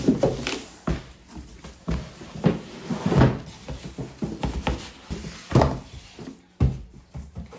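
Large cardboard box being tipped, slid and lifted off a smaller box on a wooden tabletop: about eight hollow cardboard thumps and scrapes spread over several seconds.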